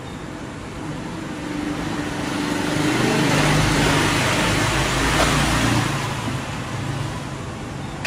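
LG top-load washing machine running after its start button is pressed: a hissing, whooshing machine noise with a low hum that swells over a couple of seconds, is loudest around the middle, then eases off.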